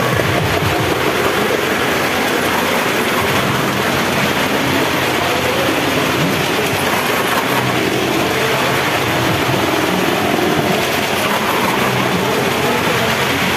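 Small cars and a motorcycle driving round the wooden wall of a well of death: a loud, steady din of engines running hard, mixed with the rumble of tyres on the planks.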